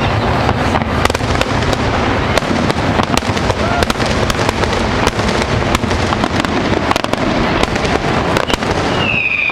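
Fireworks finale: a loud, dense, continuous barrage of shell bursts and crackling, with many sharp bangs close together. A high, slightly falling whistle starts near the end.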